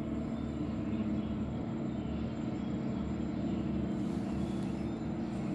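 Steady low background hum with no other events.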